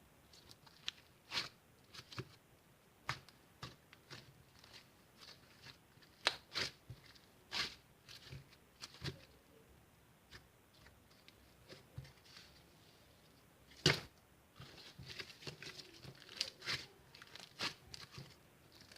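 Irregular taps, clicks and paper rustling from small objects being handled on a desk, with one louder knock about two-thirds of the way in and busier rustling after it.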